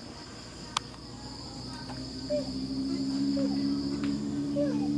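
Steady high-pitched insect buzzing, crickets or cicadas. A single click comes less than a second in. About halfway through, a low steady hum joins, with a short chirp repeating about once a second.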